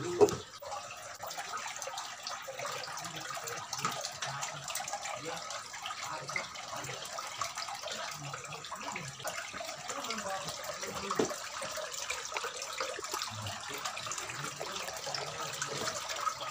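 Water running and trickling steadily, a continuous hiss with scattered small clicks and taps.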